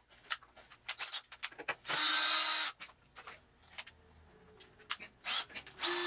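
Cordless drill running in two short bursts, about two seconds in and again near the end, boring into a wooden block. Light clicks and knocks of the drill and the board being handled between the bursts.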